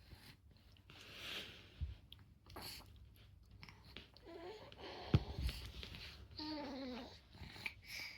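A nine-month-old baby vocalizing in two short, falling-pitched coos, with a few low knocks about two and five seconds in.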